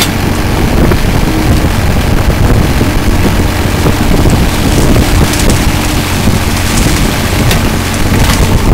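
Hitachi mini excavator's diesel engine running steadily at working speed while the bucket digs mud out of a drain, with wind noise on the microphone.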